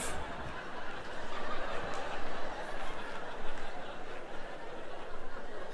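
Theatre audience laughing, many people at once, the laughter building over the first couple of seconds and then holding steady.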